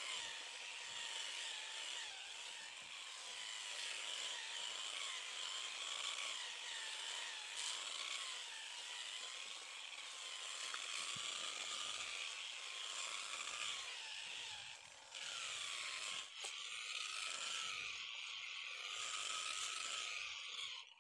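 Angle grinder run at reduced speed on a dimmer, wet-polishing a granite countertop edge with a 1000-grit pad: a steady motor whine that wavers up and down in pitch over a grinding hiss, with a brief dip about 15 seconds in.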